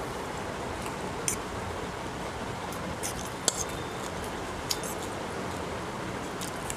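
A metal fork clinking and scraping against a ceramic plate while scooping up noodles: a handful of short, sharp clinks, the sharpest about halfway, over a steady background hiss.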